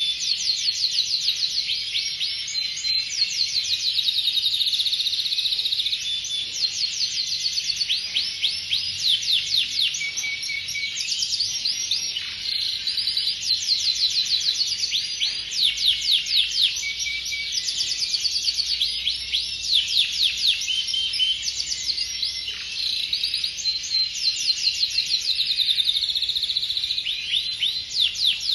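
Domestic canary singing a long, unbroken song of rapid trills and rolls, each made of quickly repeated sweeping chirps, moving from one trilled phrase to the next.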